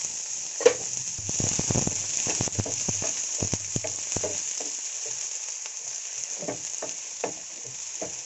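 Chopped onions sizzling in hot oil in a nonstick frying pan, with a wooden spatula scraping and knocking against the pan as they are stirred; the sharpest knock comes under a second in.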